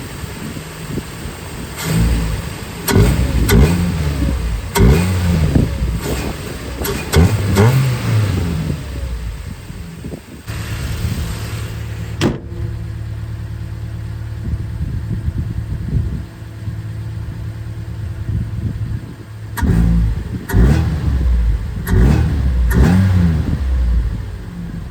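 Nissan Micra K11 engine revved in a series of quick blips through a pod-filter air intake, the revs rising and falling sharply. About ten seconds in it settles to a steady idle, with one sharp click, then another run of quick revs follows near the end.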